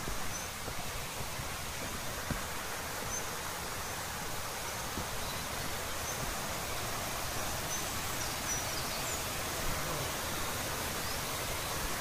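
Steady rushing of a mountain stream and waterfall, with faint high bird chirps now and then.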